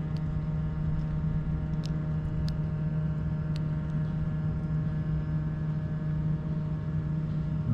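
A steady low machine hum, made of several held tones like an idling engine, with no change in pitch or level. A few faint, sharp ticks sound in the first few seconds.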